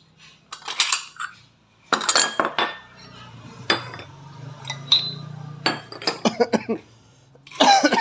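Drinking glasses and a spoon clinking as drinks are made: a string of sharp separate clinks, with a quick run of taps about three-quarters of the way through and a louder cluster at the end.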